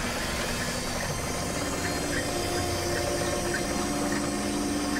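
Deck winch on a fishing boat running steadily as it hauls in rope, its motor humming with a slight change in pitch about two seconds in.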